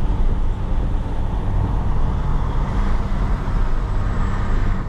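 Big rig's diesel engine running steadily, a low drone.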